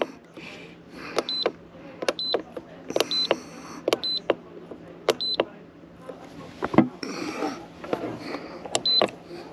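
Control panel of a Worx cool box/freezer beeping as its buttons are pressed: a click with a short high beep about once a second while the modes and temperature setting are stepped through. A louder knock comes about seven seconds in.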